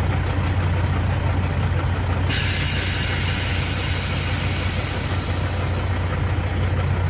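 Semi truck's diesel engine idling with a steady low rumble. About two seconds in, a steady high hiss starts suddenly and carries on over it.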